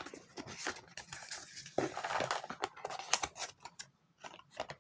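Cardboard and plastic packaging being handled while taking accessories out of a phone box: irregular light rustling, crinkling and small clicks.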